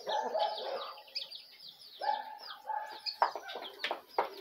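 Domestic hens clucking, with two drawn-out calls and rapid high chirping throughout, and a few sharp taps near the end.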